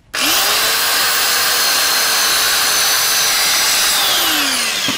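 Rotorazer Platinum compact circular saw (500-watt motor) spinning up as the trigger is pulled, running steadily as it cuts through a thick Protea branch, then winding down in pitch near the end as the trigger is released.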